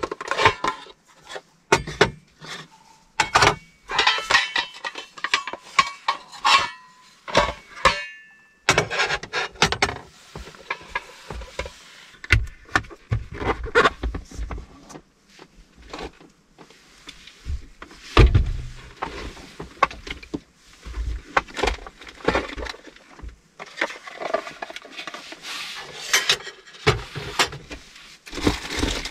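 Cooking gear and food being handled and set down: utensils and items clicking, knocking and clinking on an aluminium folding table, with lids and containers taken from a plastic cooler. A heavier low thump comes a little past the middle.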